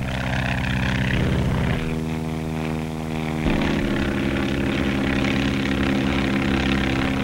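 Biplane's piston engine and propeller droning steadily, its pitch changing abruptly twice, about two seconds in and again about three and a half seconds in.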